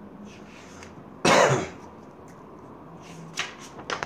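A man's single short cough about a second in, followed near the end by a couple of light taps and rustles of paper being handled.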